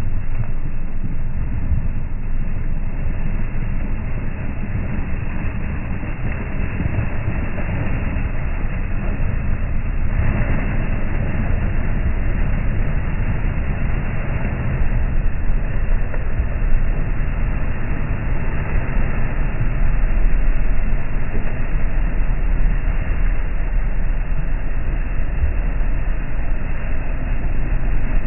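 Toyota Land Cruiser engine working under load in mud, with the tyres churning and spinning. A deep, steady rumble that grows a little louder in the last third.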